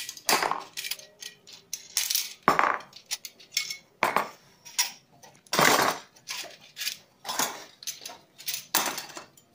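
Aluminium TV antenna tubes and elements clinking and knocking against each other as they are handled, an irregular series of sharp metallic clatters.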